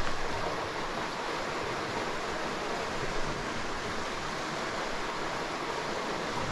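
Steady rush of flowing creek water, an even hiss that keeps up without a break.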